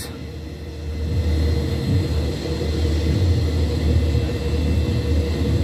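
A steady low rumble that grows louder about a second in, with a faint steady hum above it.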